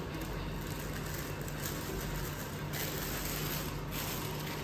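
Steady low room hum, with faint rustling of plastic bags as hair bundles are handled, a little stronger a few seconds in.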